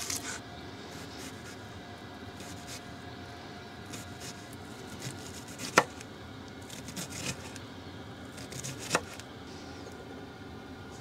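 Scattered sharp knocks and clicks from vegetables and kitchen things being handled during food prep: two loud knocks in the second half, softer clicks between. A steady hum runs underneath.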